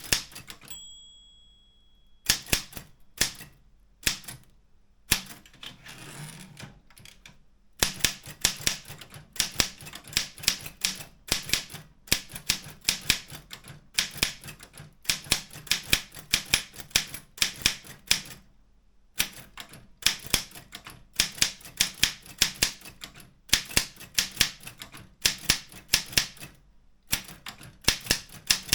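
Optima M14 typewriter keys striking in quick runs of typing, broken by short pauses. A steady high tone rings for about a second and a half near the start.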